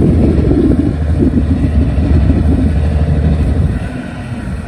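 A fishing boat's 1000-horsepower marine diesel engine running as the boat motors past, a steady low drone that drops off about four seconds in.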